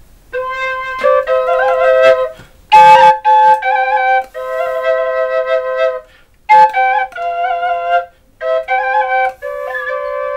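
Podhale dwojnica, a wooden double duct flute, being played in short melodic phrases. A steady lower note sounds under a melody that changes as the fingers lift, with brief breaks between phrases.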